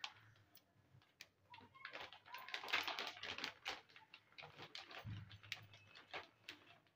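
Plastic zip-lock bag crinkling and rustling as it is handled and opened, a run of quick, irregular crackles.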